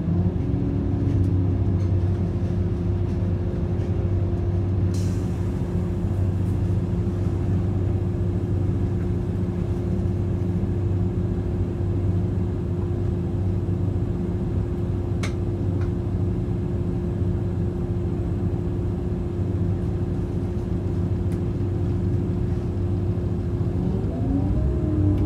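Regional train running at steady speed, heard from inside the passenger car: a steady low rumble with a steady drive whine, a couple of sharp clicks, and the whine rising in pitch near the end.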